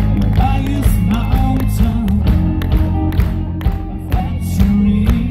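Live band playing through a PA: a male singer's amplified vocals over electric guitar, bass guitar and a drum kit keeping a steady beat of about two strokes a second.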